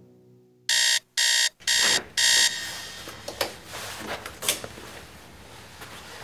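Electronic alarm clock beeping four times, about two beeps a second, then stopping. Faint footsteps and small knocks follow.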